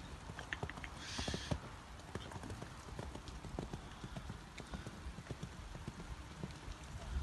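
A horse cantering on a sand arena: a run of dull hoofbeats, with a brief hiss about a second in.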